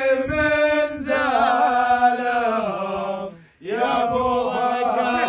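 A man's voice chanting an Arabic sung poem in long, drawn-out notes, with a brief break about three and a half seconds in before the next line starts.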